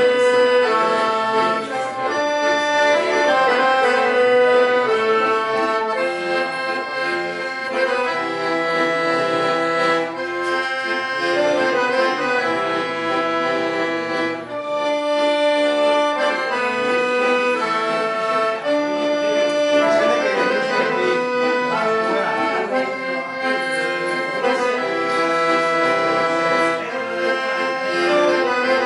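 Piano accordion being played: a melody of held notes over a steady, repeating bass-and-chord accompaniment.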